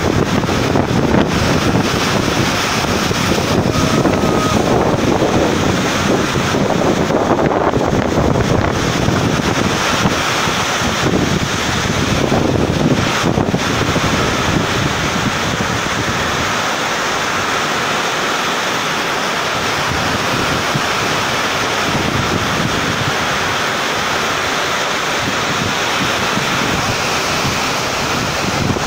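Heavy monsoon rain pouring steadily in a strong, gusty wind. The gusts rumble on the microphone and ease for a while past the middle.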